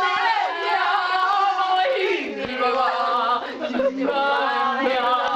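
Group of voices singing together, holding long notes that shift in pitch every second or so.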